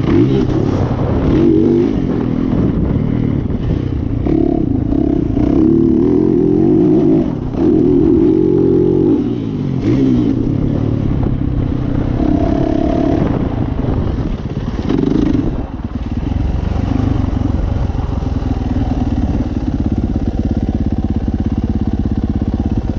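Yamaha motocross bike's engine, heard from the handlebars while riding a dirt track, revving up and backing off again and again. From about two-thirds of the way in it settles into a steadier, lower running at light throttle.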